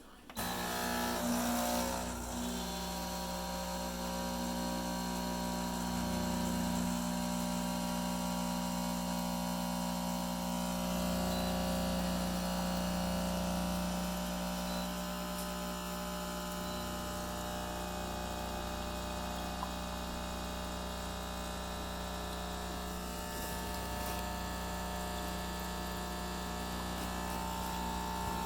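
De'Longhi combination coffee maker and espresso machine running with a steady electric hum. The hum starts suddenly, a little louder for the first two seconds, then holds even.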